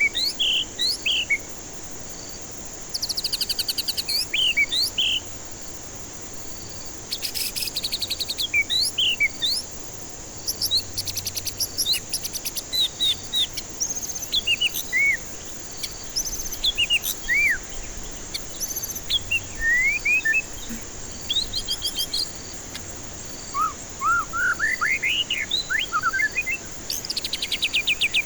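White-rumped shama (murai batu) singing in phrases of clear whistled notes that swoop up and down, broken by bursts of fast, rattling trills, with short pauses between phrases. A steady hiss runs underneath.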